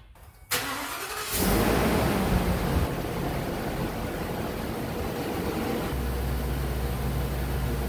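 Ford 6.8L V10 engine starting: the starter cranks for about a second, the engine catches with a brief rev, then settles into a steady idle. It is being run up to operating temperature to warm the oil before an oil change.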